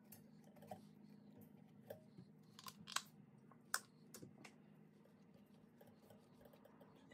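Faint scattered clicks and taps from gloved hands handling a tortilla wrap on an air fryer's metal rack, the two sharpest about three and three and three-quarter seconds in, over a low steady hum.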